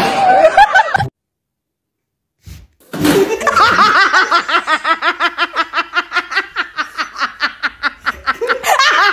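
A person laughing hard and without a break, a long run of quick 'ha' pulses about six a second. It starts after a short gap of silence about three seconds in.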